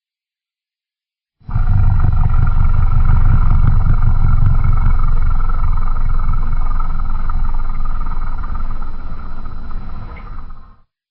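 Custom-made Godzilla roar sound effect: one long, deep roar starting about a second and a half in and lasting around nine seconds, easing off slightly near the end before cutting off.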